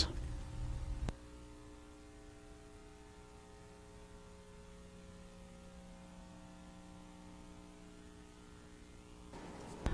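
Faint, steady electrical mains hum in the recording, a low buzz with a stack of evenly spaced overtones. A louder low rumble in the first second cuts off abruptly.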